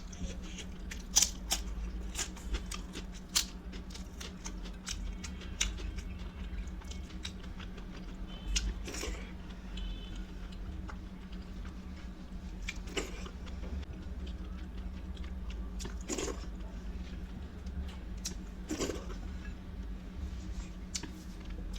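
Close-up eating sounds: a person chewing and crunching food, with many sharp mouth clicks in the first few seconds and a few louder, longer bites later on, over a steady low hum.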